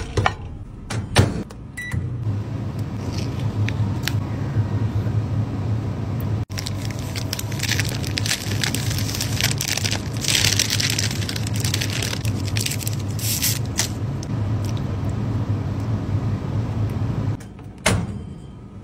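Microwave oven running with a steady low hum, with crinkling plastic food packaging over it for several seconds in the middle. The hum stops near the end, and the oven door is knocked open.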